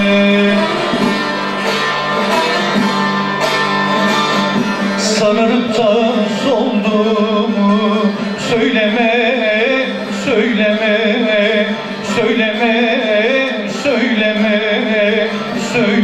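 Live Turkish folk music led by a long-necked saz (bağlama), its plucked melody weaving over sustained low notes, with a voice singing along.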